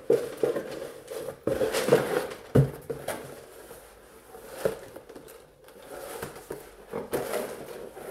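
Cardboard and paper packaging rustling as hands rummage in a carton and lift out a smaller cardboard box, with irregular knocks and taps of cardboard against cardboard, the sharpest about two and a half seconds in.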